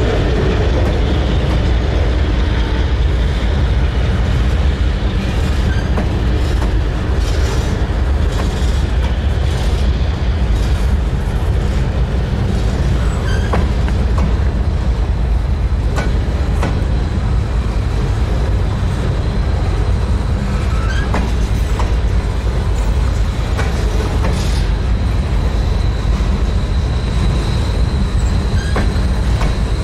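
Freight train cars rolling slowly past close by: a steady low rumble with scattered clicks and clanks of the wheels over rail joints, and a thin high wheel squeal in the last few seconds.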